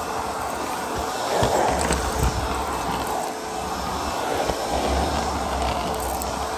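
ProTeam MegaVac commercial vacuum running steadily with a faint motor whine, its floor tool worked across a dirty floor, with a low rumble twice as it is pushed along.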